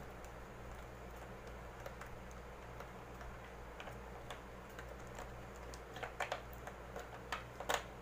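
Small clicks and taps of hands working electrical wires and a wire connector at a plastic junction box, a few sharper clicks coming in a cluster near the end, over a steady low hum.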